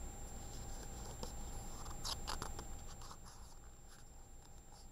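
A paper page of a picture book being turned, a brief rustle about two seconds in, over quiet room tone.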